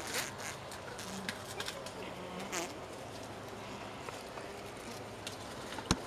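A honeybee colony humming steadily inside the hive, heard close up at the entrance, with a few brief clicks and a sharper tap near the end.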